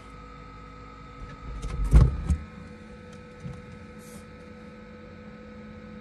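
Small computer fans, powered by a USB power bank, running inside a closed camper fridge: a steady hum made of a few constant tones. A single thump comes about two seconds in.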